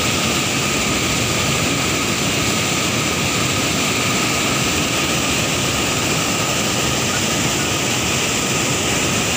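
White water rushing and churning out below a concrete sluice gate: a loud, steady rush that does not let up.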